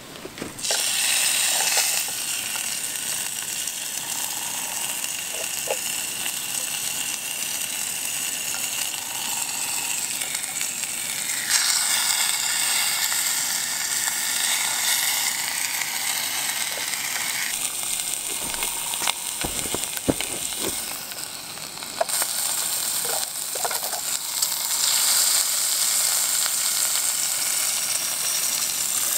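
Brook trout fillet sizzling in hot butter and seasoning in a small stainless steel pan over a butane backpacking stove, starting as the fish drops in. The sizzle stays steady, with a few light knocks about two-thirds of the way through.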